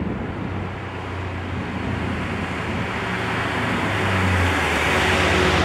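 2005 Ford Mustang GT's 4.6-litre V8 rumbling through an off-road H-pipe and Flowmaster Super 44 mufflers, growing steadily louder as the car drives up and comes alongside. Its note drops a little near the end.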